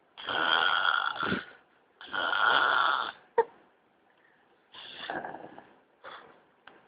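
Snoring in a sleeper's breaths: two loud snores of about a second each, then a sharp click about halfway through, then three weaker, shorter snores.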